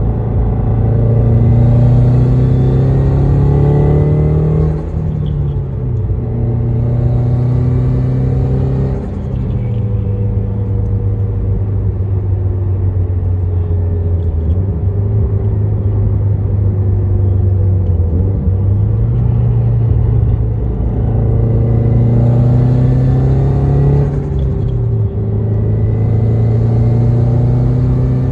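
Turbocharged Subaru Crosstrek's flat-four engine pulling hard in repeated bursts, its pitch rising and then falling away sharply at each shift or lift-off, about five, nine and twenty-five seconds in, with a steadier cruising stretch in the middle. Brief flutter from the turbo and bypass valve comes as the throttle closes.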